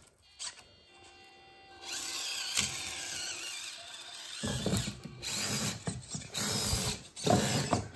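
Mini RC crawler's small electric motor and gearbox whining as it drives, starting about two seconds in, the pitch wavering with the throttle. From about halfway it gets louder, with the tyres and chassis scraping on the plastic block as the crawler climbs onto it.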